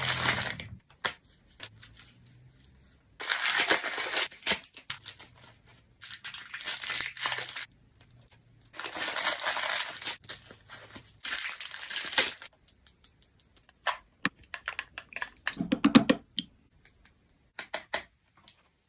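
Plastic packaging of a colour-reveal Barbie doll crinkling and tearing in four bursts as it is unwrapped, then a run of light clicks and taps with a soft thump near the end.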